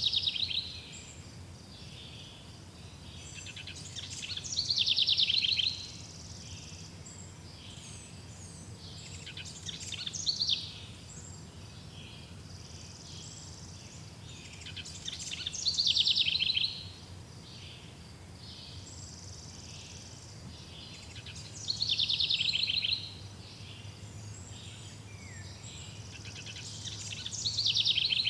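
A songbird repeating the same song phrase, a quick trill of notes falling in pitch, about every five to six seconds, with fainter chirps of other birds between phrases over a low steady background hum.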